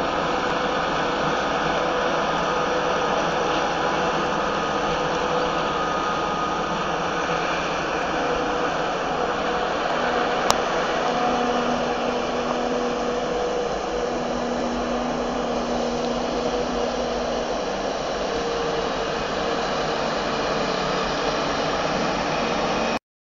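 Claas Jaguar 980 forage harvester chopping maize for silage, with the tractor running alongside: a loud, steady whirring machine noise with a few faint humming tones.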